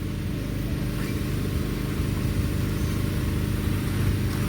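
An engine or motor running steadily with a low, even drone, from machinery used in building work.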